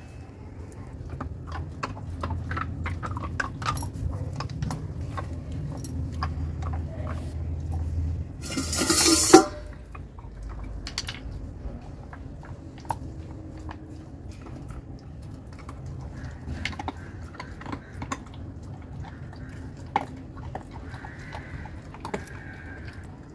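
Labrador puppy gnawing on a chew stick, with many small clicks and crunches of its teeth. About nine seconds in comes a loud noisy burst lasting about a second.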